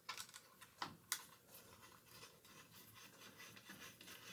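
Faint clicks and light scratching of a screwdriver backing out the single screw of a top cover on an Epson large-format printer. A few sharper clicks come in the first second or so, then soft irregular ticking.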